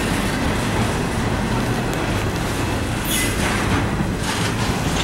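Intermodal freight train's container well cars rolling past: a steady rumble of steel wheels on rail, with a brief high-pitched wheel squeal about three seconds in.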